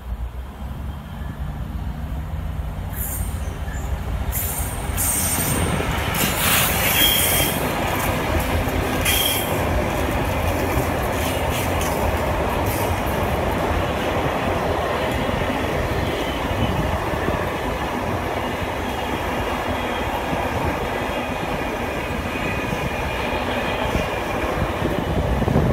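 Freight train running through the station: the locomotive's engine is heard as it approaches, then steady rumble and clatter as a long rake of intermodal container wagons rolls past. Brief high wheel squeals come a few seconds in.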